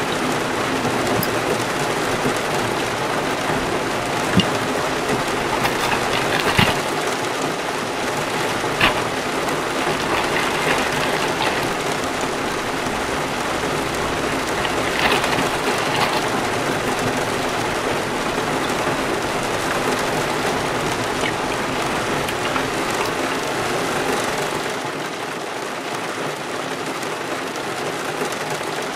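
Heavy rain drumming steadily on the car's roof, heard from inside the car. A few sharp light knocks from utensils being handled, and a crinkle of a plastic food bag being opened about halfway through.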